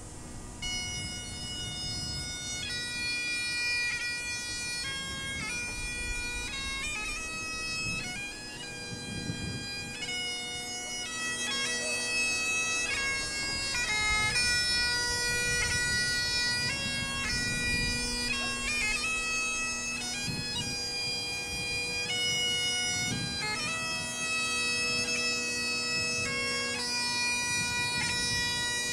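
Great Highland bagpipe played solo: the drones hold a steady tone under a chanter melody of held, changing notes, starting about a second in.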